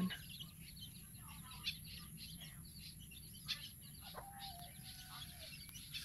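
Many birds chirping at once, a busy chatter of short, high chirps, with louder calls standing out about one and a half and three and a half seconds in. The birds are flocking to feed on flying termites swarming after rain.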